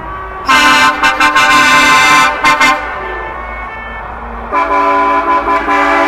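Truck air horns sounding: a long blast starting about half a second in ends in a few short toots, and after a short pause a multi-tone horn chord starts again as a run of repeated blasts.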